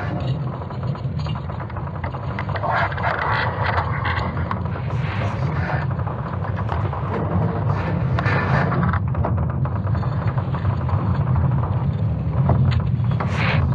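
Sonification of Earth's magnetic field reversal during the Laschamp event, made by ESA's Swarm team from recordings of creaking wood and falling rocks: a continuous deep rumble with creaking, grinding and scraping sounds layered over it, growing a little louder toward the end.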